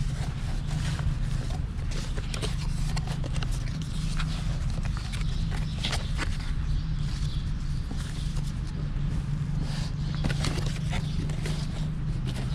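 Irregular clicks, taps and light knocks of packaging and camera gear being handled during an unboxing, over a steady low hum.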